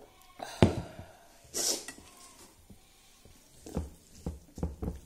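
Eating rice by hand from a metal plate, heard up close. There is a sharp knock about half a second in and a short hissing breath about a second later. In the last second and a half come soft, wet chewing sounds at about two to three a second.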